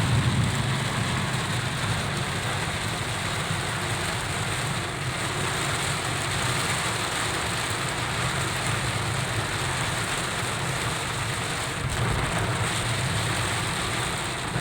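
Heavy rain falling steadily on a car, heard from inside the cabin, over a steady low hum from the car.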